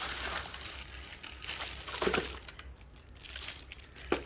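Packaging crinkling and rustling as parts are unpacked by hand, thinning out after about two seconds, with a short knock about two seconds in and another near the end.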